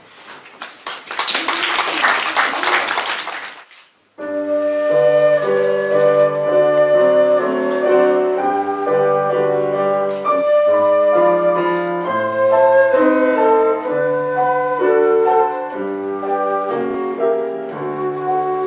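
Audience applause for about four seconds, cut off sharply. A concert flute then plays a sustained melody over upright piano accompaniment.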